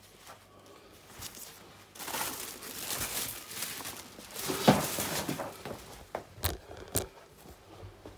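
Crinkling and rustling of packaging or a rubbish bag being handled for several seconds, ending in two sharp knocks.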